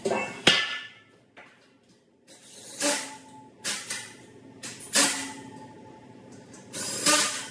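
Cordless drill/driver in about five short runs, driving the small screws that hold brackets on a loft bed, with clanks of metal parts between.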